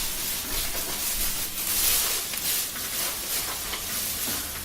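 Paper or plastic rustling and crinkling as it is handled, an uneven hissing crackle.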